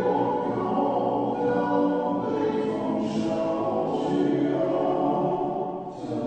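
Choir singing held notes with music, with no clear words.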